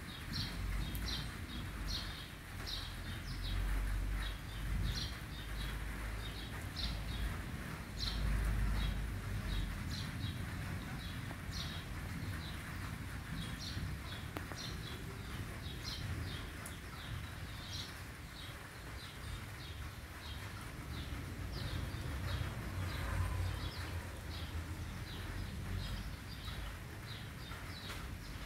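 Birds chirping steadily, short high calls repeated two or three times a second, over a low background rumble.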